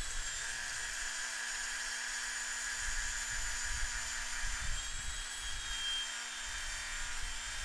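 Milwaukee 10-inch circular saw fitted with a West System scarfing jig, running steadily as it cuts a tapered scarf along the edge of a plywood sheet, a steady high whine over the blade noise.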